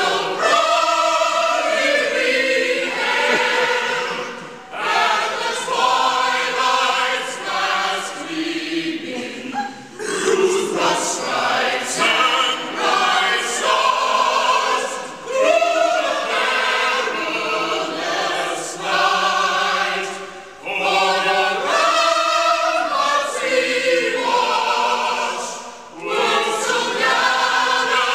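A choir of several voices singing together in long phrases, with short breaks between phrases about four times.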